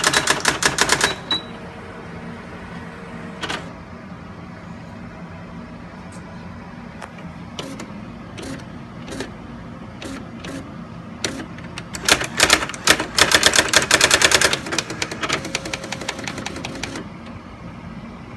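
Brother GX-6750 daisy wheel electronic typewriter printing as it is typed on: a fast run of print-wheel strikes in the first second, then scattered single strikes, and a second fast run about two-thirds of the way through, over a low steady hum.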